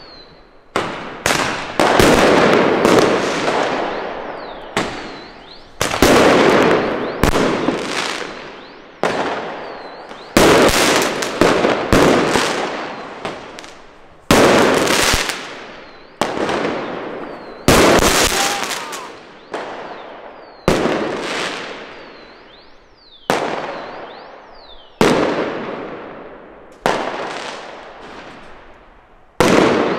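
Firework mortar shells bursting one after another, a sharp bang every second or two, about two dozen in all. Each bang rings on with a long echo between the tall apartment blocks.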